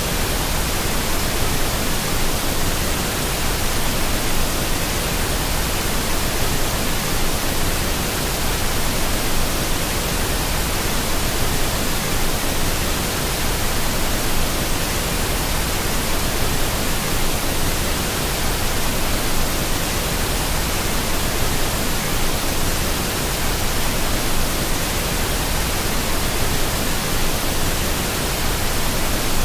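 Several waterfall streams pouring down rock faces into a pool: a steady, unbroken rush of water.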